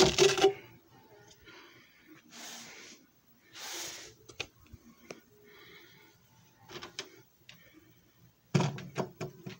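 Scattered knocks, clicks and clatter from things being handled around a disc repair machine, with a burst at the start and another near the end. Two short hissing noises come about two and a half and four seconds in.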